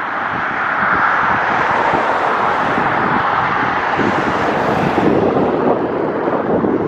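Wind buffeting the microphone over the steady noise of road traffic on the bridge, with a swell of tyre hiss as a vehicle passes about four to five seconds in.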